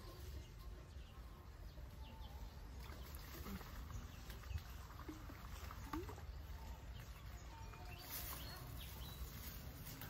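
Quiet outdoor background: a low steady rumble with a few short, faint bird-like chirps about halfway through.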